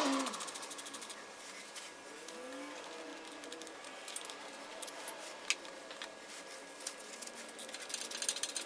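Light metallic clinks and taps of hand tools and bolts as a starter motor is unbolted, with a few sharp clicks in the second half.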